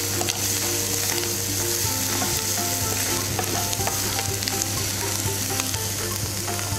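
Chopped onion, tomato and green chilli with chopped Veg Bytz sizzling steadily in hot oil in a non-stick pan, while a wooden spatula stirs the mixture, with small scraping clicks against the pan.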